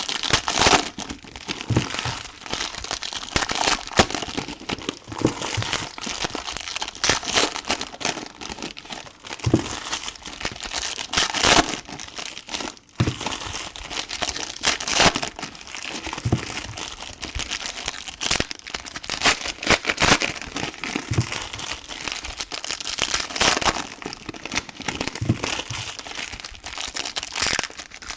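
Plastic wrappers of trading card packs crinkling and crackling as they are handled and torn open, with cards shuffled between them.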